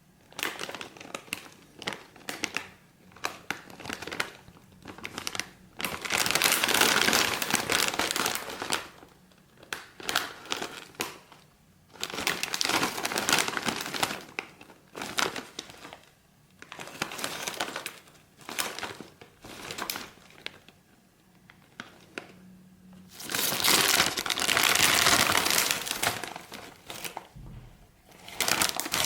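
A foil snack bag of Lay's Maxx chips crinkling as it is handled by hand, in irregular bursts with short pauses. The loudest stretches come about 6 to 9 seconds in and again about 23 to 26 seconds in.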